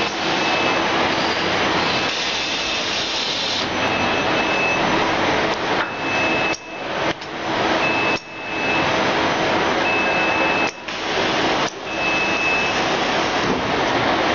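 Machine-shop noise from CNC machines worked by an industrial robot arm: a steady, loud rushing noise with a short high tone that returns about every two seconds, and several sudden brief dips.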